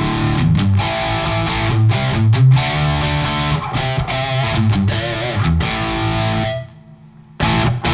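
Electric guitar played through a KOR Oracle overdrive pedal with its controls set at halfway, giving a distorted tone: a run of riffs and chords that stops about six and a half seconds in, then one more chord struck near the end.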